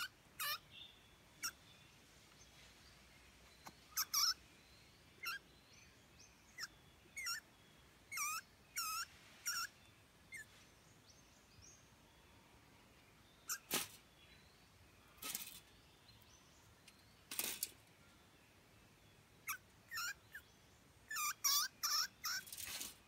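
A rodent caught in a wire-mesh cage trap squeaking: short, sharp high-pitched squeaks in quick clusters, with pauses between. A few sharp clicks come in the middle and near the end.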